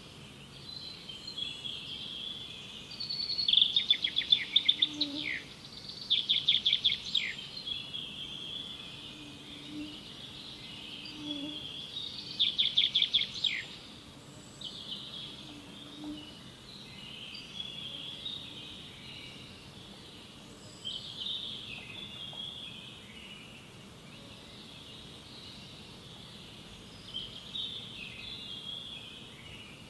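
Wild birds singing and calling, with bursts of rapid trilling about four, seven and thirteen seconds in and softer chirps after.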